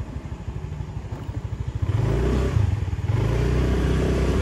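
Motorcycle engine pulsing at low revs, then accelerating from about two seconds in into a louder, steady drone, with a brief dip about a second later.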